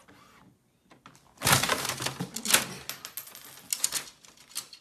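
Inkjet printer printing a page: its print head and paper feed run with a rapid clatter of clicks, starting about a second and a half in and stopping just before the end.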